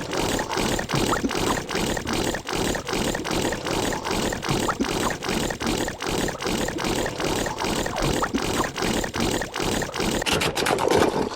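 The Tubby Custard machine malfunctioning: a loud, dense mechanical churning and sloshing with an even beat of about three pulses a second, stopping at the end.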